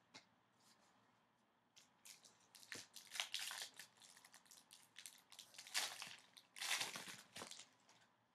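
Foil trading-card pack wrapper crinkling and tearing as it is ripped open, in irregular bursts starting about two seconds in and stopping shortly before the end.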